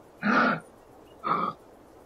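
Kangaroo giving two short, harsh, raspy calls about a second apart.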